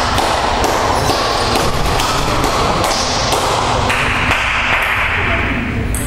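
Celluloid table tennis ball bouncing and tapping, a scatter of light, irregular ticks over a steady background noise of the hall.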